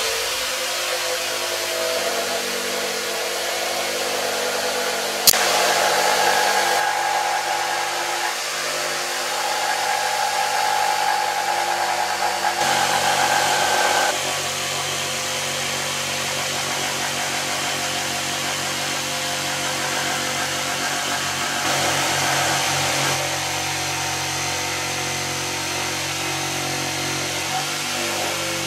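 Corded jigsaw running steadily as its blade cuts a curved outline through a thick glued-up timber board. Its pitch and loudness shift several times as the cut goes on, with one sharp click about five seconds in.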